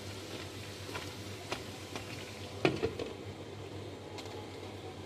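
Peanuts boiling in water in a covered pan: a steady bubbling hiss, with a few light knocks of pan or lid, the loudest about two and a half seconds in.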